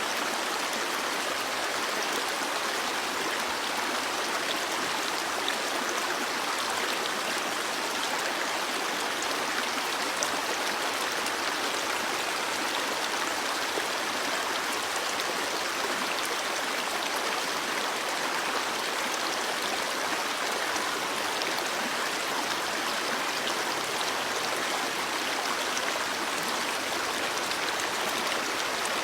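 A stream of water flowing steadily over rocks, an even continuous rush and babble.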